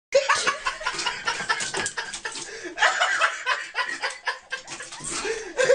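People laughing in short, choppy bursts.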